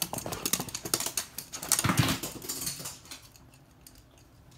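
Toy poodle's claws clicking and pattering quickly on a hard floor, with a thump about two seconds in; the ticking dies away after about three seconds.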